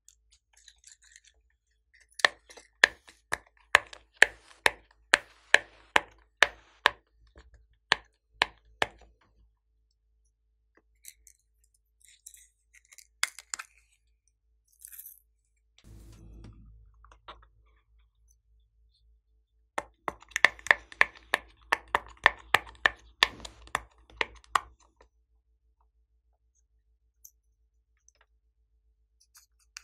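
Bubbles of a silicone pop-it fidget toy being pushed through one at a time, each giving a sharp pop, about two a second for several seconds. A second, quicker run of pops comes later.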